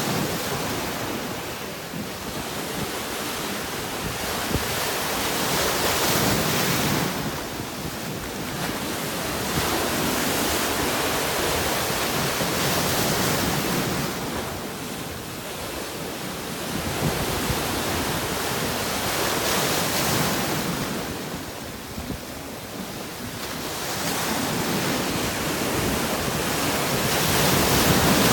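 Sea waves breaking on rocks: a continuous wash of surf that swells and falls back every several seconds.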